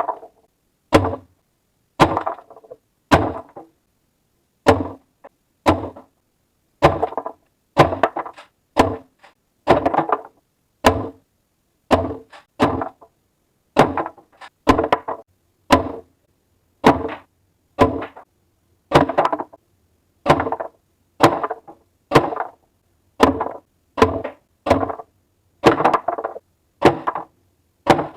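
Umarex HDX68 gas-powered .68 calibre pump-action shotgun firing repeatedly, about one shot a second, each shot a sharp report followed by a brief clatter.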